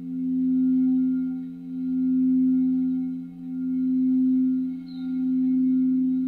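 Singing bowls ringing in two low, sustained tones. The sound swells and fades in a slow pulse about every second and a half.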